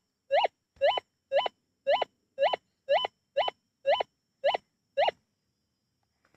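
Minelab Gold Monster metal detector giving its target signal: a short rising chirp repeated about twice a second as the coil is swept over a target, ten chirps that stop about five seconds in.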